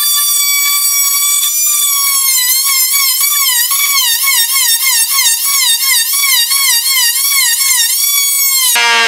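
Porter-Cable oscillating saw cutting a groove into wooden boat planking: a high steady whine that, from about two seconds in, sags and recovers in pitch about twice a second as the blade works into the wood.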